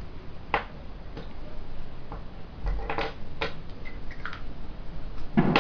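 A handful of irregular light clicks and taps from small makeup items being handled, such as pencil caps, pots and brushes, with the loudest near the end.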